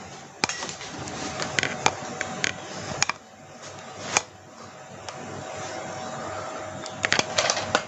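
Steady fan-like hum with scattered sharp clicks and taps, and a quick run of clicks near the end.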